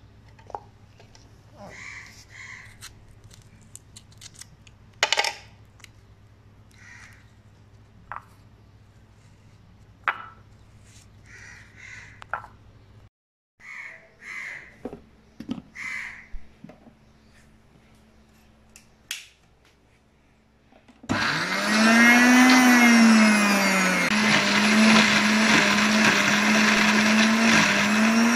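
Electric blender (mixer-grinder jar) grinding chopped tomato, coriander and spices into a wet masala paste. The motor starts about three-quarters of the way in: its whine rises, dips, then holds steady at full speed.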